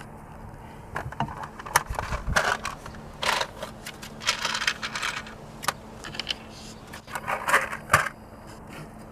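Irregular clicks, rattles and short scraping sounds of hand work with tools and wiring, for about seven seconds, then it stops.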